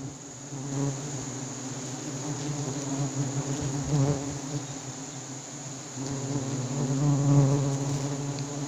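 A swarm of giant honey bees buzzing around a wild comb on a sialang tree: a steady, dense hum with a few bees coming close and swelling briefly now and then.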